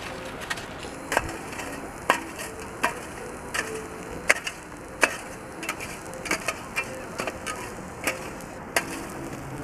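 Footsteps on snow at a walking pace, about one step every 0.7 s, over a steady outdoor background hiss.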